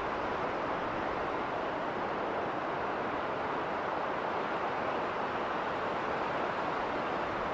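Winter wind blowing steadily through a snowstorm: an even, unbroken rushing noise that holds at one level.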